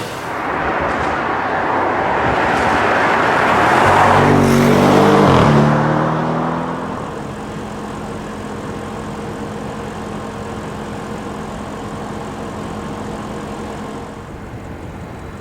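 Audi RS6 Avant's twin-turbo 4.0 V8 under hard acceleration, loudest about five seconds in. Around six to seven seconds it drops back to a quieter, steady engine hum.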